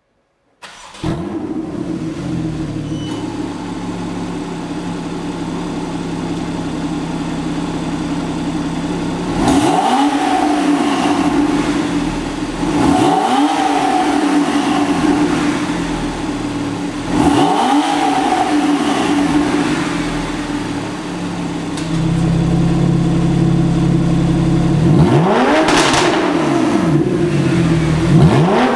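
Porsche 991 Carrera S flat-six with an HMS Performance valved (flap) exhaust. It idles steadily, then is revved several times in short blips that rise and fall back to idle.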